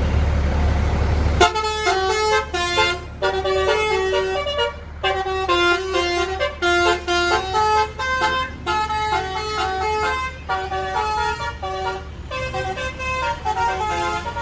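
A bus's basuri telolet horn playing a fast tune of short, stepping notes, starting about a second and a half in, after a rumbling noise.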